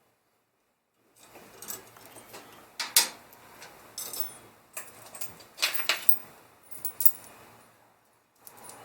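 Sharp clicks and metallic rattles of small items being handled, about half a dozen separate knocks, the loudest about three seconds in.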